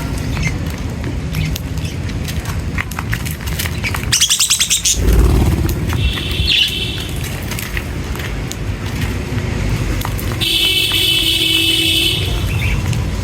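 Small birds chirping, with a rapid high trill about four seconds in, a short burst of chirps soon after, and a longer buzzy trill near the end, over a steady low rumble.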